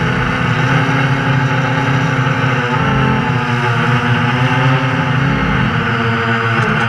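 FPV drone's electric motors and propellers whining steadily, the pitch dipping and rising as the throttle changes.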